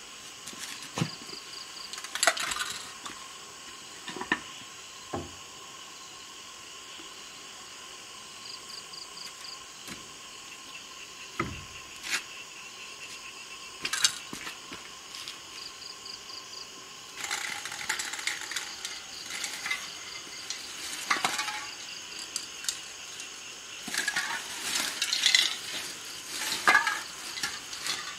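Scattered light clinks and knocks from handling a spray-paint can and tools, giving way after about halfway to denser rustling and clattering of things being picked up and moved.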